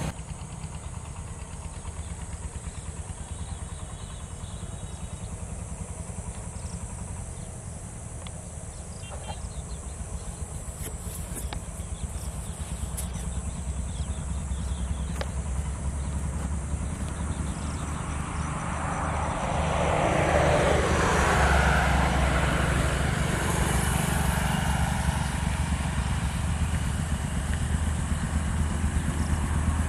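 An engine running steadily with a low, rhythmic throb, swelling louder with a rushing sound about twenty seconds in.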